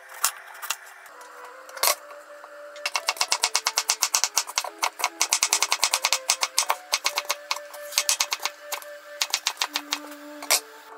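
Kitchen knife cutting daikon radish on a wooden cutting board: a few spaced slices at first, then fast, even chopping from about three seconds in that slows and breaks off near the end. Soft background music with held notes plays underneath.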